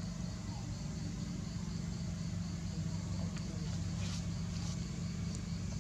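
Steady low mechanical hum, like an engine idling, with a few faint clicks.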